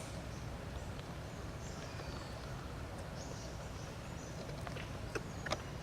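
Outdoor ambience: a steady low rumble with intermittent high, thin chirps and a few sharp clicks, two of them close together near the end.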